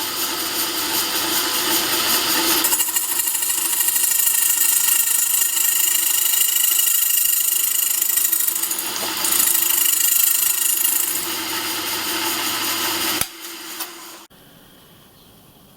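Small machine tool running and cutting the screwdriver slots in bicycle spoke nipples, a steady whine with a shriller cutting note through the middle. It shuts off about 13 seconds in, hums briefly and goes quiet.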